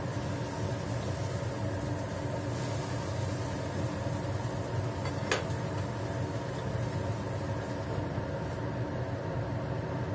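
Steady low mechanical hum with a faint hiss, unchanging throughout, with one sharp click about five seconds in.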